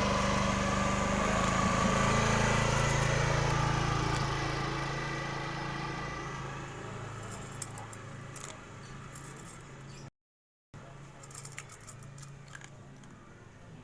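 An engine hums steadily, loud at first, then fades away over several seconds. After a brief dropout come faint scattered clicks and rattles.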